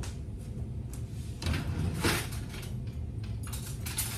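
A kitchen drawer sliding open and metal cutlery rattling and clinking as a spoon is picked out, with a louder clatter about halfway through and a run of light clicks near the end.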